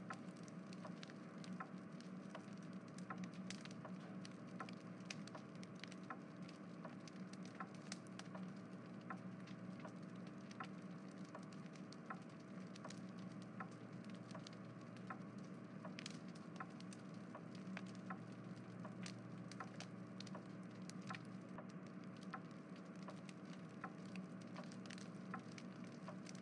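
Faint steady low hum with many small, irregular clicks scattered through it.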